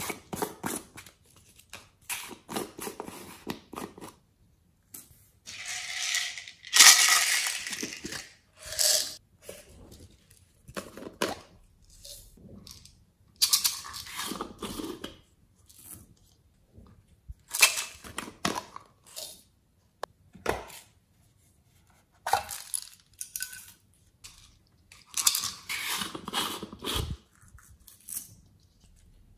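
Plastic toy containers being handled and pried open by hand, with irregular plastic clicks, rattles and scraping, and a few longer rustling bursts as sequins and glitter are shaken out into a glass dish.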